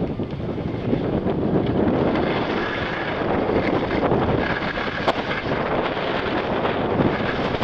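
Strong wind buffeting the camera microphone: a dense, steady rumble with no speech.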